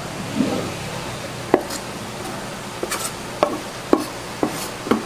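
A kitchen knife chopping blanched sea mustard (miyeok) stems on a wooden cutting board: about seven sharp, irregularly spaced knocks, starting about a second and a half in.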